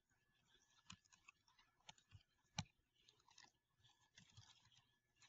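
Near silence with a few faint, scattered keyboard key clicks, the clearest about two and a half seconds in.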